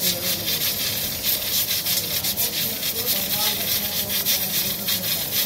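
Hot karahi curry sizzling and crackling in a steel karahi, a dense run of fine crackles, with faint voices in the background.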